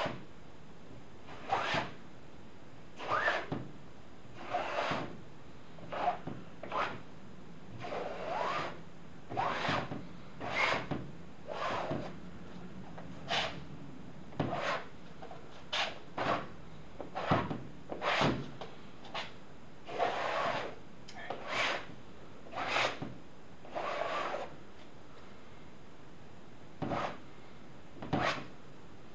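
Brush strokes on a stretched canvas: a paintbrush scrubbed back and forth, working oil paint into the surface in about twenty short scratchy strokes, one every second or so, with a short pause near the end.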